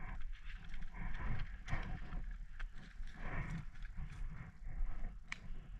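Footsteps crunching through brush and dry leaves at a walking pace, about two steps a second, with a few sharp clicks.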